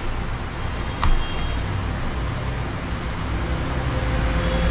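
Steady low background rumble with hiss, with one sharp click about a second in.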